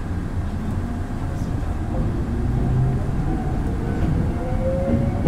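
Toyohashi Railway 1800-series electric train running, heard from inside the car: a steady rumble from the wheels on the rails, with a motor whine that rises in pitch near the end as the train gathers speed.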